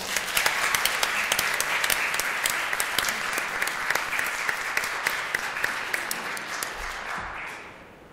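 An audience applauding, many hands clapping together, dying away near the end.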